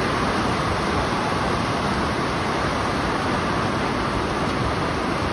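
Steady rain falling, an even hiss with no breaks or strikes.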